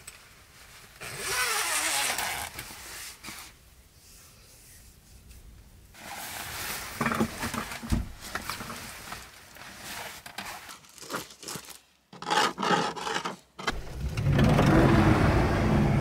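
Rustling and crinkling of a sleeping bag's fabric shell as it is handled and pulled around, in several stretches with small clicks and knocks. Near the end comes the loudest sound, a heavy low rumbling rush.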